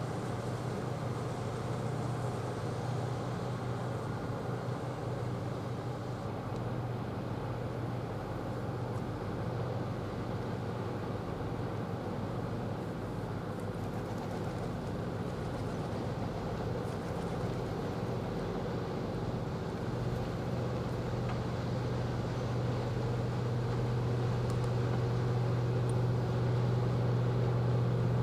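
Low steady hum of a Bremen-class frigate's machinery as the ship passes close by under way, over an even hiss. The hum grows louder toward the end.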